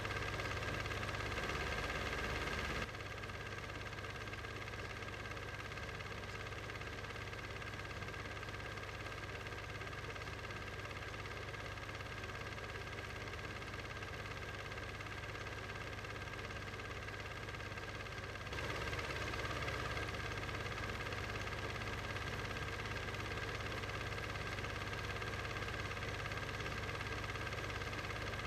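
Steady mechanical hum made of several constant tones, with no speech or music. It drops slightly in level about three seconds in and rises again after about eighteen seconds.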